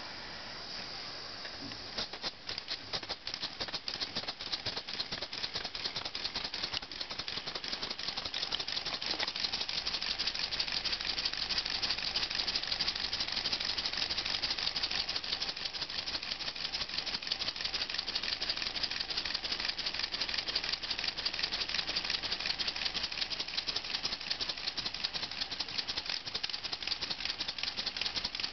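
LEGO two-cylinder pneumatic engine running on compressed air: a fast plastic rattling clatter from its cylinders, valves and gears that starts about two seconds in, quickens as the flywheel spins up, then holds a steady rapid rate.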